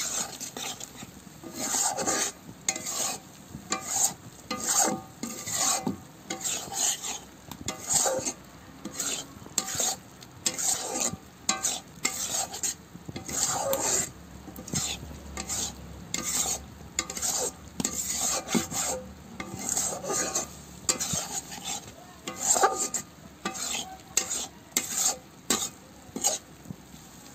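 Spatula scraping and stirring goat liver pieces around a kadai, about one or two strokes a second, over a steady sizzle of hot oil. The gravy has cooked down dry and the liver is being fried in the oil.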